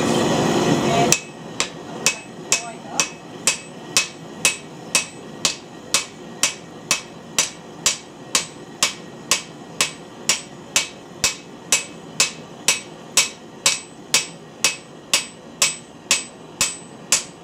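A hand hammer striking a glowing high-carbon steel bar on an anvil, forging it hot, at a steady rhythm of about two blows a second, each blow ringing briefly. For about the first second there is a loud rushing noise, which cuts off when the hammering begins.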